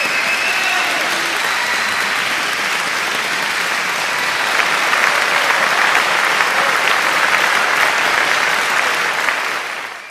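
A crowd applauding, a dense steady clapping that grows a little louder about halfway through and then fades out near the end.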